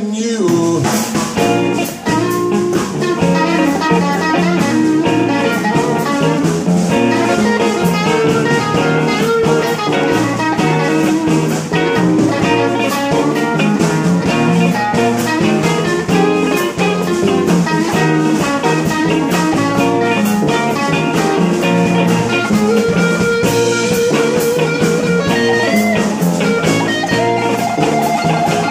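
Live blues band playing an instrumental passage: electric guitar leading over upright bass and drum kit, with no vocals.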